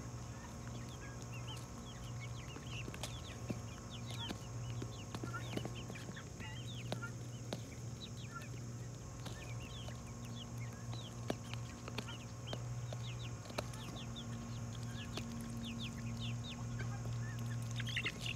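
A mixed flock of young chickens, guinea fowl and ducks in pens, chirping and clucking: many short, high, falling calls, one after another, over a steady low hum.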